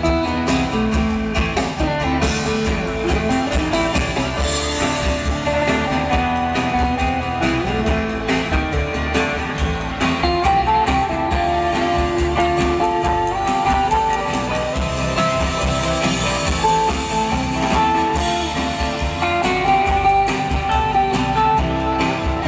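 Live band playing an instrumental passage: an electric guitar carries a single-note melody over strummed acoustic guitar, electric bass and drums.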